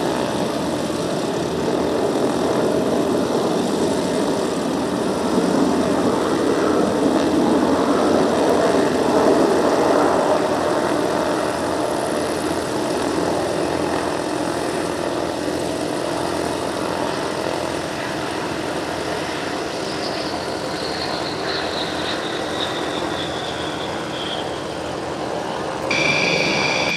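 Jet aircraft engine running with a steady rumble, and a high whine that falls slowly in pitch for a few seconds about twenty seconds in. Near the end a different steady, high, several-pitched whine starts suddenly.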